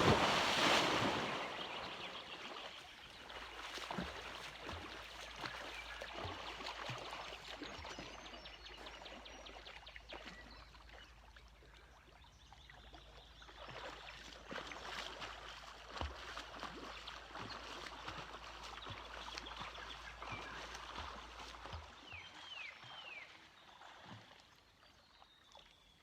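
Water splashing as a person plunges into a cold lake. The splash is loudest at the start and dies down over the first couple of seconds, followed by lighter, irregular sloshing and splashing. A few short chirps come near the end.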